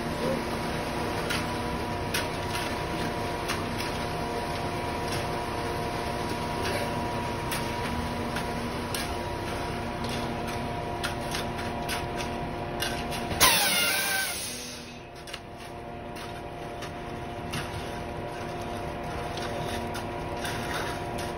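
Concrete mixer truck running steadily while concrete is poured down its chute, with scattered scrapes and knocks of shovels and rakes working the wet concrete. About two-thirds of the way through, a loud brief squeal falls in pitch.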